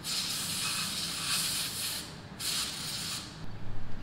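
Aerosol carburetor cleaner (CRC Clean-R-Carb) hissing as it is sprayed into a go-kart engine's carburetor to free a sticking float needle: one long burst of about two seconds, then a shorter one. A few light knocks near the end.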